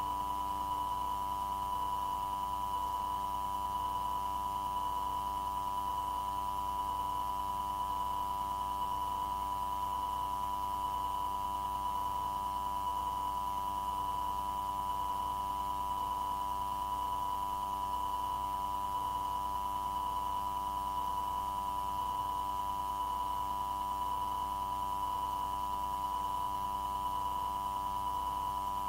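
A steady electronic tone running unchanged on the air traffic control radio recording between transmissions, with fainter steady tones above and below it and a faint regular pulsing beneath.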